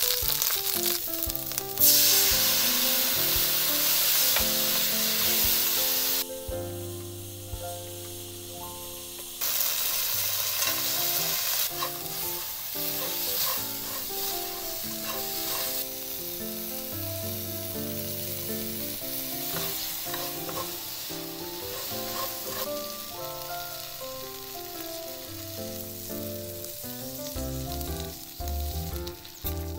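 Kkwari (shishito) peppers and dried anchovies sizzling in hot oil in a wok while a silicone spatula stirs them. The sizzle drops away about six seconds in and comes back about three seconds later. Soft background music plays underneath.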